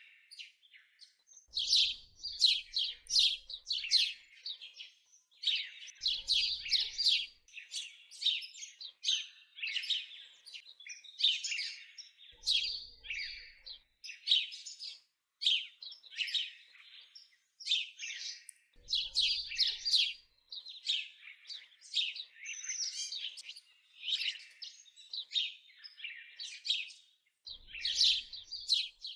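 Birds chirping and singing: quick, high chirps and trills in busy phrases with short pauses between them.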